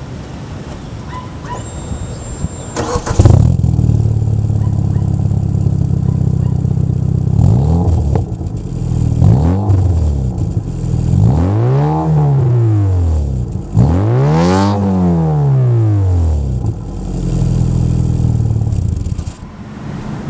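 Nissan Sentra GXE's four-cylinder engine, breathing through an aftermarket cat-back exhaust, cranks and starts about three seconds in. It then idles and is revved up and let fall back several times, the two biggest revs near the middle.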